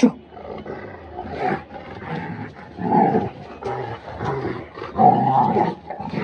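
A Rottweiler and a German Shepherd play-fighting, growling in rough bursts that are loudest about three seconds in and again about five seconds in. A brief sharp sound comes at the very start.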